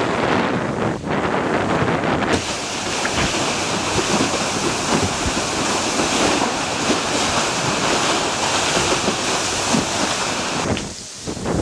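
Water rushing and spraying past the hull of a Gunboat 66 sailing catamaran at speed, with wind buffeting the microphone. About two seconds in it turns to a brighter hiss of spray, which drops away just before the end.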